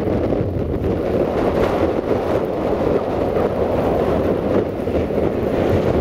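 Blizzard wind buffeting the microphone in a steady rush, with the low rumble of an approaching 060-DA (LDE2100) diesel-electric locomotive's Sulzer engine underneath.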